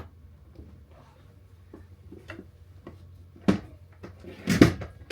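Light clicks and taps from hardware and the microwave being handled during its removal, with a sharp knock about three and a half seconds in and a louder clatter of knocks about a second later, over a low steady hum.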